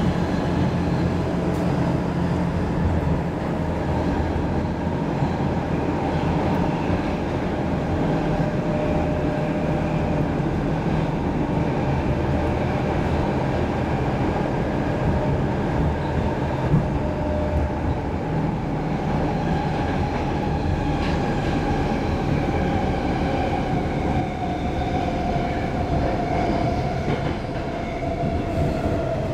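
A Stockholm Metro C6 subway car running, heard from inside the car: a steady rumble of wheels on track, with a whine that falls slowly in pitch near the end.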